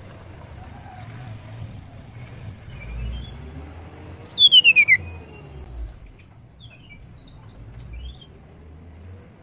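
Blue flycatcher (tledekan) calling: scattered short high chirps, and about four seconds in a loud, rapid trill of about eight notes sliding down in pitch over roughly a second.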